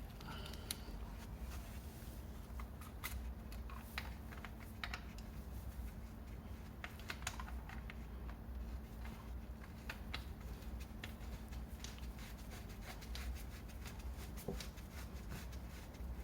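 Scattered light clicks and taps from hands refitting the oil strainer screen, its spring and the drain plug on a 50cc four-stroke scooter engine during an oil change, over a low steady hum.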